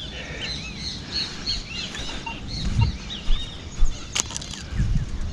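Birds chirping in quick, repeated arched calls, then a single sharp click about four seconds in as a piece of drink can is set down on a concrete ledge, with a few low thumps of movement.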